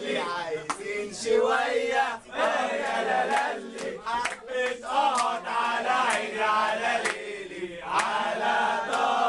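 Group of young men chanting a song together in loud unison, with hand claps keeping time about once a second.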